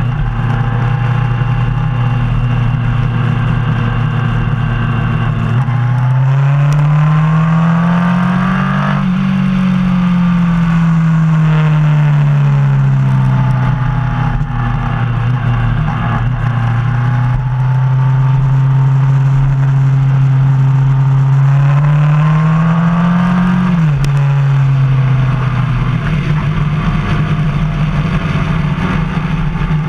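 Motorcycle engine running at road speed, heard from on the bike over steady wind rush. The engine note holds steady, climbs twice as the bike accelerates and eases back; the second climb ends in a sudden drop in pitch.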